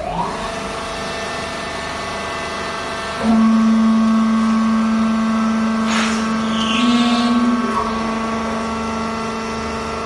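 Vertical hydraulic fiber baler running: its electric motor and hydraulic pump give a steady, many-toned hum and whine. About three seconds in a louder steady drone comes in, and it drops back near eight seconds.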